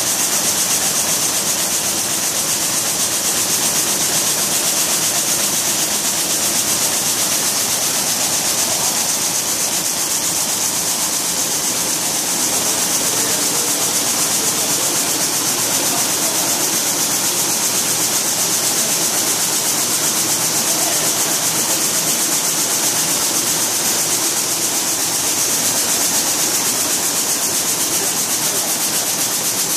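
Weaving looms running together in a mill: a loud, steady, fast mechanical clatter with a strong hiss over it.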